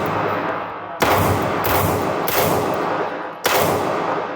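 Pistol shots fired at an irregular pace, four in a row. Each is a sharp crack with a long echoing tail that overlaps the next shot.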